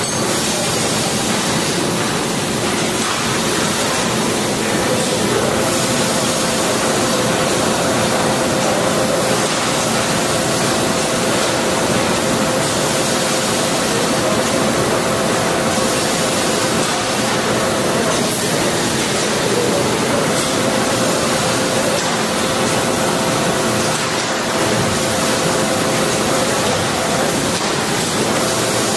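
Lathe cold-winding heavy gauge round wire into a large torsion spring: a steady, even machine noise, with a faint hum joining about five seconds in.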